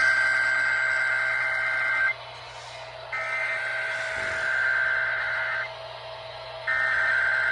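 Emergency Alert System SAME header: a raspy two-tone digital data screech sent three times, each burst about two and a half seconds long with about a second's pause between. The first burst ends about two seconds in and the third starts near the end. It is the coded header that opens a Required Weekly Test.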